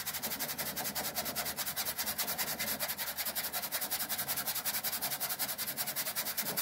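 Toothbrush bristles scrubbing the mesh insect screen of a Fantastic Fan RV roof vent, in quick, even back-and-forth strokes about seven a second.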